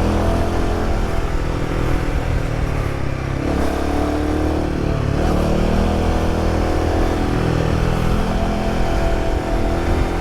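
Royal Enfield Himalayan 450's single-cylinder engine running under way through a prototype aftermarket exhaust with a U-routed mid pipe in place of the stock resonator box, a note only a little louder than stock. The pitch dips and climbs again a few times as the throttle is rolled off and on.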